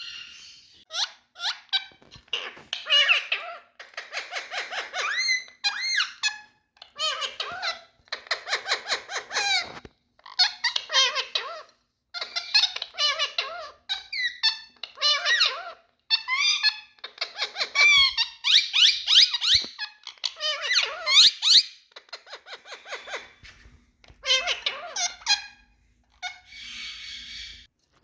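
A parrot calling in a long run of shrill, squeaky squawks and chatter, in bursts of a second or two with short gaps between them.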